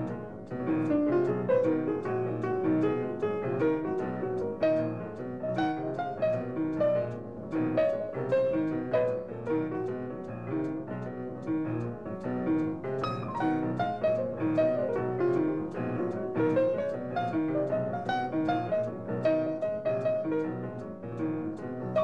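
Jazz piano playing quick running lines over a double bass, from a late-1940s jazz recording.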